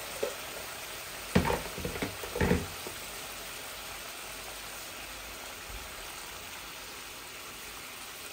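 Curry sauce bubbling and sizzling steadily in a wok on a turned-down gas flame, just come up to the boil after hot water was added. A short run of knocks about a second and a half in.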